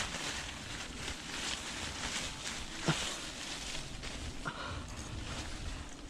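Rustling and wind noise on the microphone, with a single sharp knock about three seconds in.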